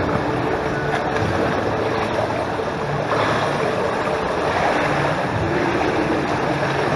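Pool water churning and lapping close to the microphone, a steady rushing. The splashing of a swimmer's strokes grows louder about three seconds in as he reaches the wall.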